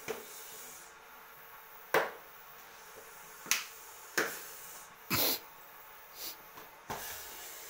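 A clear plastic bottle with a live snake inside, handled in the hands: a series of about seven sharp, separate clicks and taps of plastic. The one about five seconds in is a slightly longer, noisier crackle.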